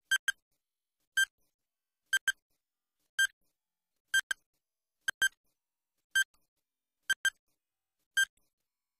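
Quiz countdown timer sound effect: short, high electronic beeps about once a second, some single and some in quick pairs, as the seconds count down.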